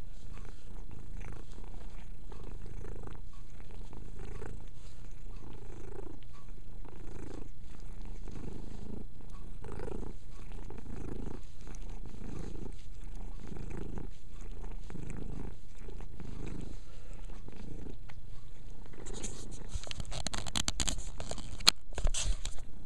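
Calico cat purring steadily close to the microphone, the purr swelling with each breath about once a second. Near the end come a few seconds of loud crackling and sharp clicks.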